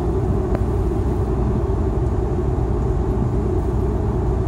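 Steady low rumble of road and engine noise inside a car's cabin while driving on a motorway. A single faint click comes about half a second in.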